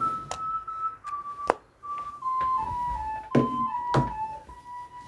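Ringtone playing from a Samsung GT-C3592 mobile phone's speaker: a simple melody of single notes, one at a time, stepping down in pitch, with several sharp clicks over it.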